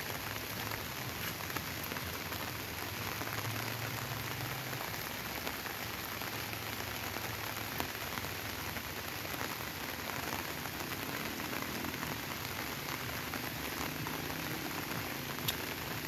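Steady rain falling on bamboo and other leafy foliage, with a few louder single drops standing out.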